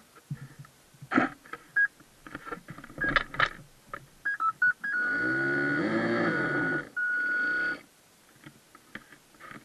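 Clicks and knocks of hands handling the action camera in its waterproof case on the model boat, with a few short electronic beeps. About five seconds in comes a steady high electronic whine lasting about three seconds, broken once, over a low hum that rises and falls.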